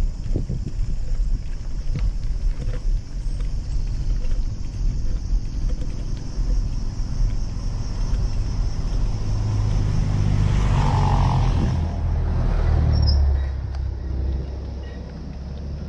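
A heavy lorry going past on the road, its low engine rumble swelling to its loudest about 11 to 13 seconds in and then fading as it drives off, over a steady low rumble of road and wind noise.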